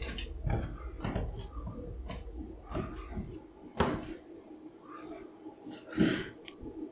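Creaking from a back door: a string of faint creaks and clicks, with two sharper, louder creaks about four seconds in and again about six seconds in.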